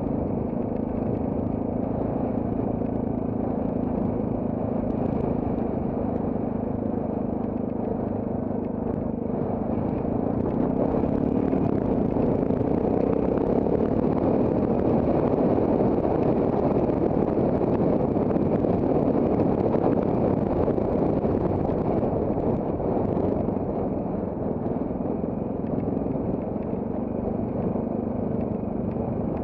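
Trail motorcycle engine running steadily on the move. It grows louder and rougher for about twelve seconds in the middle, then eases back to its earlier note.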